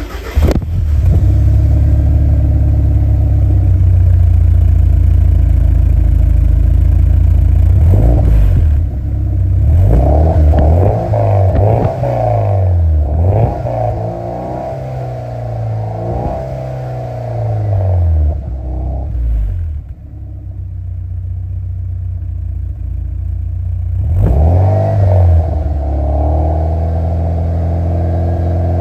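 1993 Porsche 968's 3.0-litre four-cylinder engine at the tailpipe, catching on a cold start and settling into a steady fast idle. From about eight to twenty seconds in it is revved in a string of short blips, then falls back to a quieter idle, with one more blip near twenty-five seconds before idling steadily again.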